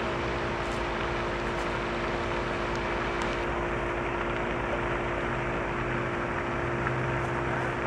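Steady hiss and rumble with a constant low hum that does not change.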